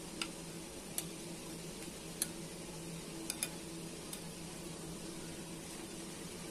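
Hot cooking oil in a wok crackling faintly, with scattered sharp pops, over a steady low hum.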